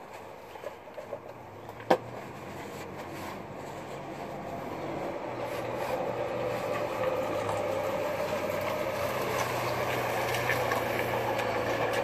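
A motor vehicle's engine gradually getting louder, as if approaching, with a sharp click about two seconds in.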